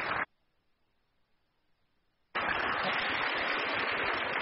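Audience applause that cuts off abruptly, leaving about two seconds of near silence, then comes back just as abruptly at an edit.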